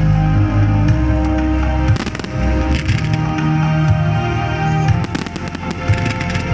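Fireworks going off in quick clusters, about two seconds in and again around five to six seconds, over loud music.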